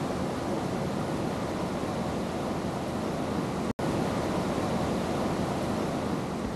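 Mountain stream rushing steadily through a rocky gorge, a constant hiss of water that drops out for an instant about halfway through.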